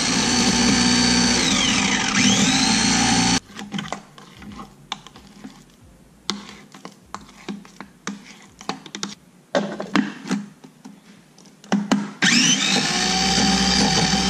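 Food processor motor pureeing roasted pumpkin, its whine dipping once and climbing back before it cuts off about three seconds in. Then a spatula knocks and scrapes in the plastic bowl, and near the end the motor starts again with a rising whine.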